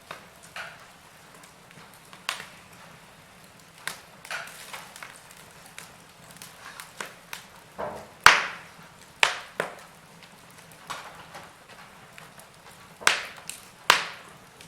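Wood fire crackling: burning logs giving irregular sharp pops and snaps over a faint hiss, with a loud pop about eight seconds in and two more near the end.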